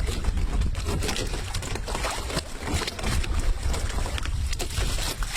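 Wind buffeting the microphone as a steady low rumble, with irregular small knocks and clicks throughout.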